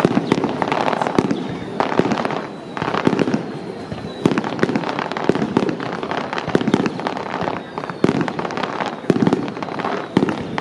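Fireworks going off in a steady barrage: sharp bangs several times a second, with crackling bursts swelling about every second.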